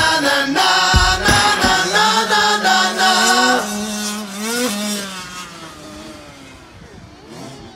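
Closing bars of a country rock song: drum hits and sustained guitar and vocal tones, then a held final chord that fades away over the last few seconds.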